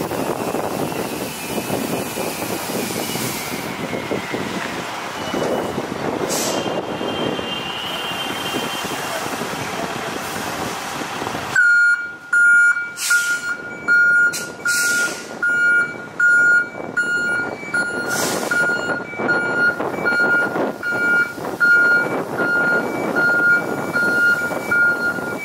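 Heavy tanker truck's diesel engine running as the truck moves off. About halfway through, a fire engine's reversing alarm takes over, beeping evenly a little over once a second above the engine, with a few short hisses.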